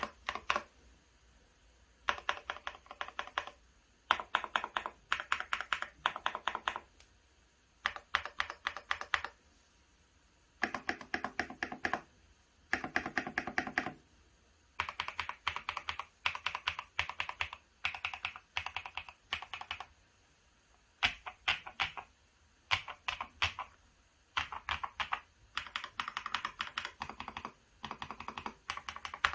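Mechanical keyboard with Akko CS Silver linear switches and PBT OSA keycaps being typed on fast, in runs of rapid keystrokes a second or so long broken by short pauses; a couple of the runs have a deeper, thockier sound.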